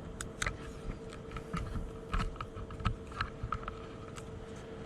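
Scattered light clicks and knocks, about a dozen at irregular intervals, over a steady hum.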